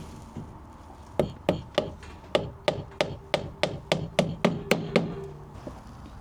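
A hammer driving a nail into a wooden board: about a dozen quick, evenly spaced blows, roughly three a second, that stop about five seconds in.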